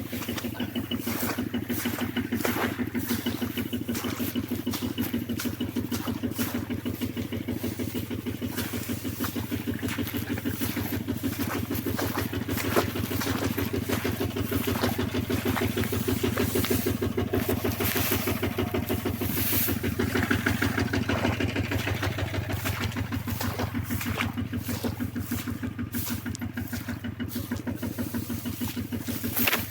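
An engine running steadily at an even speed, with a fast regular pulse.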